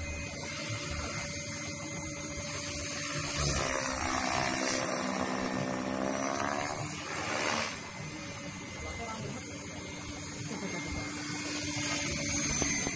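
Radio-controlled KDS Agile 5.5 helicopter in flight, its rotor and drivetrain giving a steady whine. For a few seconds in the middle it gets louder and its pitch rises and falls as it manoeuvres overhead.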